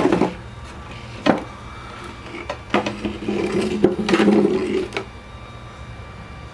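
Wooden radio cabinet being handled: a sharp knock about a second in, then a rubbing, scraping sound of wood lasting about two seconds.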